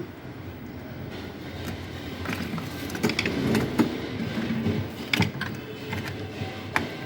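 Scattered clicks and knocks of hand work on small hard parts, over a steady low background noise.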